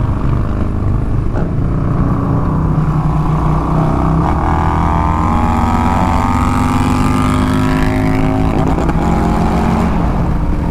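Harley-Davidson Milwaukee-Eight V-twin motorcycles accelerating hard at highway speed, over wind rush. From about four seconds in the engine note climbs steadily in pitch, then breaks up choppily around eight and a half seconds, which the rider puts down to the other bike hitting its rev limiter after dropping to second or third gear.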